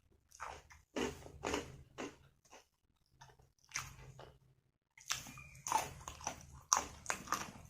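A person chewing and biting food close to the microphone, in a series of short, crackly mouthfuls at an uneven pace that come thicker in the second half.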